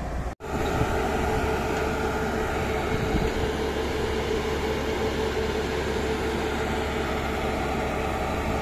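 Truck-mounted concrete pump running steadily as its hydraulic boom unfolds: the engine powering the hydraulics gives a constant drone with a steady tone. The sound cuts out briefly about half a second in, then resumes at the same level.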